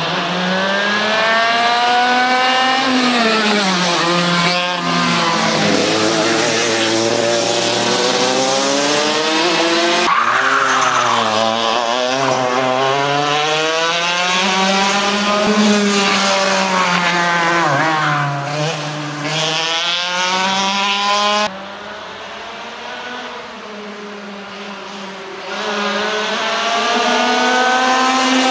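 Racing go-kart engine revving up and down as the kart laps the circuit, its pitch rising on the straights and dropping for the corners. About two-thirds of the way through it suddenly drops to a quieter, more distant sound for a few seconds, then comes back loud near the end.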